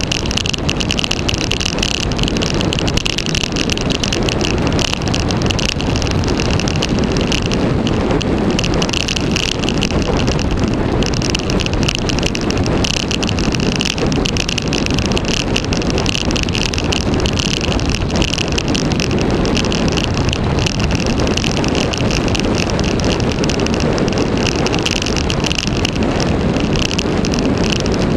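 Wind rushing over the camera microphone during a fast road-bike descent, mixed with the hum of the bike's tyres on rough, patched tarmac. The noise is loud and steady.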